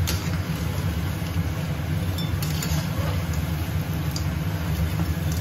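Metal spatula scraping and clinking against a wok as crayfish are stir-fried, with a few sharp clinks, over a steady low hum.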